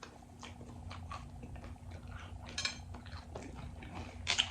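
Scattered clicks and clinks of utensils and a food container being handled while eating nachos, with a ringing clink about two and a half seconds in and a louder sharp one near the end. A low steady hum sits underneath.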